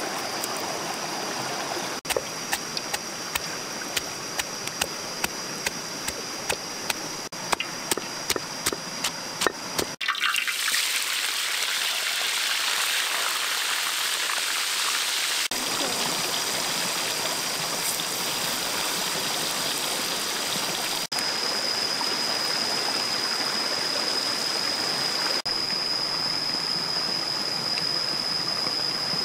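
A creek running steadily throughout. Early on comes a quick series of sharp knocks, a stone pestle pounding garlic and chillies in a stone mortar. Then comes a few seconds of bubbling, hissing water from a pot of fish at a rolling boil, and after that a steady high whine over the creek.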